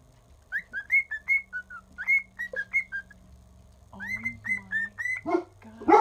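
Cockatiel whistling: a string of short chirped notes, each sliding up and then dropping, in two phrases with a pause of about a second between them.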